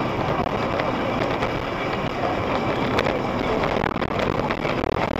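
Steady rushing noise of a moving vehicle, tyre and wind noise as picked up by a dash camera, with a few faint ticks.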